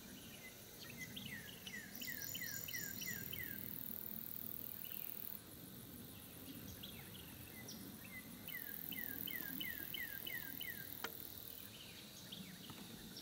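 Outdoor summer ambience: a songbird sings two runs of about eight falling whistled notes, each run lasting about two seconds, over a faint, very high insect buzz that comes and goes.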